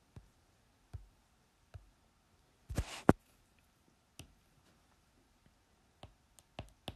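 Quiet handling sounds at a desk: a few isolated clicks and taps, a short rustle of paper about three seconds in, then short pen strokes on paper near the end as a number is written.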